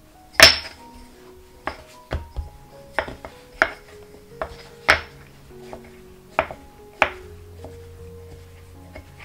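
Short wooden rolling pin knocking against a wooden board while rolling out bun wrappers: a string of sharp, irregular knocks, the loudest about half a second in, over soft background music.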